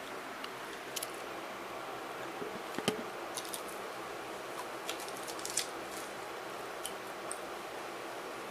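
A few light clicks and taps over a steady hiss, with one sharper knock about three seconds in.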